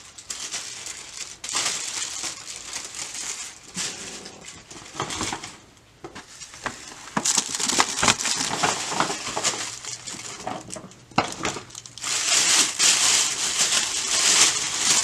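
Tissue paper crinkling and rustling as hands rummage in a gift bag and unwrap a small box. There is a quieter moment about six seconds in, and the crinkling is loudest near the end.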